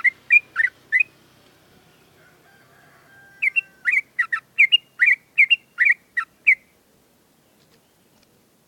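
Yellow-vented bulbul (trucukan) singing in quick runs of short whistled notes. One run stops about a second in; after a pause of about two seconds, a longer run of about a dozen notes ends a little past halfway. This is the rapid continuous song ('ngewer', 'ropelan') that keepers take as the sign of a bird in fighting form.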